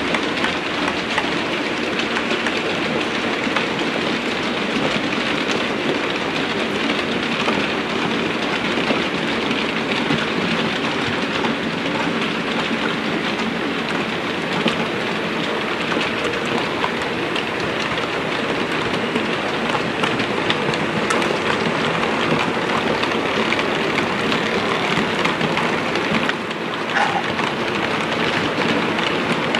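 Model trains running on a layout: a steady, dense rattle of metal wheels on the track, with many small clicks as they pass over rail joints and pointwork.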